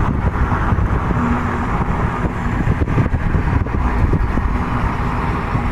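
Steady road and wind noise of a car driving at highway speed, a dense low rumble with a faint hum under it.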